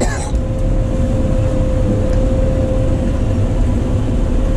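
Claas Lexion 460 combine harvester running steadily, heard from inside the cab: a deep, even rumble with a thin steady whine over it.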